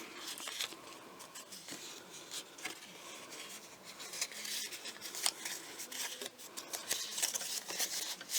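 Cardstock being handled and worked on a craft table: light paper rustling with scattered small clicks and scrapes, busier near the end.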